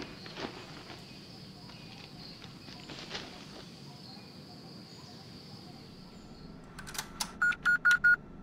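A few soft clicks of a leather wallet being handled over a steady faint high hiss. Near the end comes a quick run of clicks and about five short electronic beeps, all at one pitch, from an ATM.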